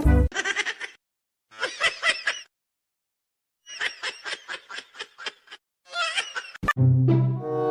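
Several groups of short, rapid, high-pitched laughter-like vocal pulses, from a person or an animal, with silent gaps between; a click about two-thirds of the way through, then brass music begins near the end.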